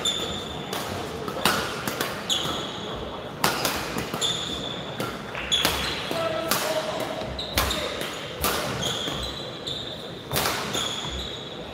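Badminton rally: rackets strike the shuttlecock with sharp smacks about once a second, and court shoes squeak on the floor between the shots, all ringing in a large hall.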